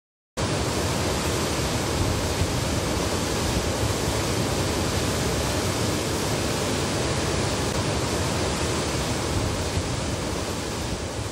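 Water spilling over a weir: a steady, even rush that cuts in abruptly just after the start.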